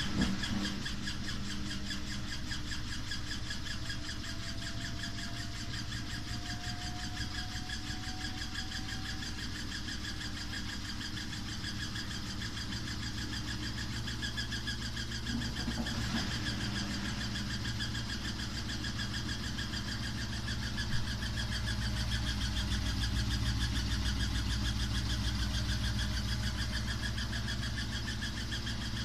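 Samsung WW5300 (WW95T534CAE) front-loading washing machine running with a loud, steady mechanical noise and a fast fine rattle, with a faint rising whine in the first several seconds and a couple of short knocks around the middle. The owner reports the machine has been making very loud noises since new.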